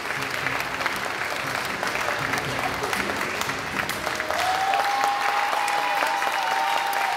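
Applause: many people clapping their hands, steady throughout. A long held high note, a voice or whistle, joins over it about four seconds in.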